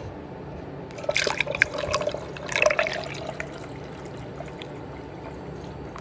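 Pre-mixed 50/50 coolant poured from a plastic jug into a funnel, coming out in uneven gulps and splashes about one to three seconds in, then running on more quietly.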